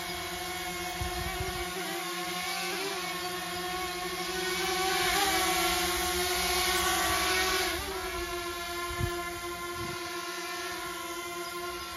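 DJI Mini 2 quadcopter's propellers whining as it hovers, a steady multi-toned hum whose pitch wavers briefly each time the drone corrects its position. The whine swells louder for a few seconds mid-way, and a brief low thump comes near the end.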